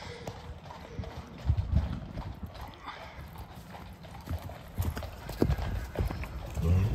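Hoofbeats of several horses cantering over sandy ground and grass. They come as irregular dull thumps, loudest about one and a half seconds in and again near the end.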